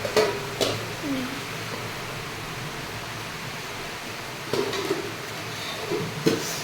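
Steady hiss of rain, with a few short sharp knocks and brief snatches of distant voice over it, near the start and again about two-thirds of the way in.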